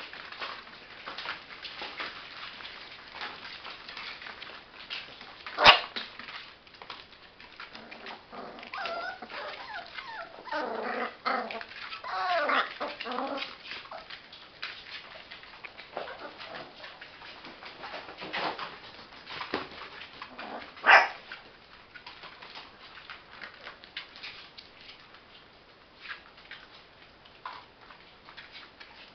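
Young Labrador puppies whimpering and yipping, with a run of whiny cries in the middle. Two sudden loud sounds stand out, one about six seconds in and one about two-thirds of the way through, over many small clicks and scuffles of the puppies moving about.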